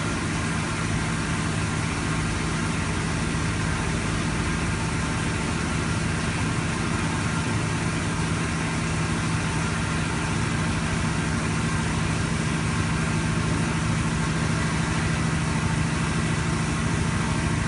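Milling machine running steadily during a test cut in Inconel 718: a constant machine hum made of several steady tones, with an even hiss over it and no change in pitch or level.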